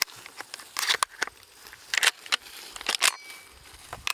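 Shells being pushed one at a time through the loading port into the tube magazine of a Winchester SX4 semi-automatic shotgun: several sharp metallic clicks as each shell snaps past the shell latch, with light handling rustle between them.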